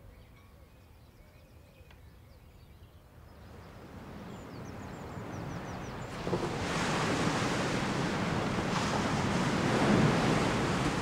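North Sea waves breaking on a sandy beach: steady surf that fades up from near quiet over the first half and then holds.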